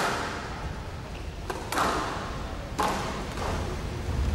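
Squash rally on a glass-walled court: a series of sharp knocks about a second apart as the ball is struck by the rackets and hits the walls.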